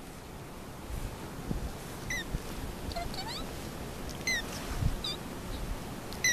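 Young Munchkin Manx kitten giving a series of short, high-pitched mews, about five of them, starting about two seconds in; one rises in pitch.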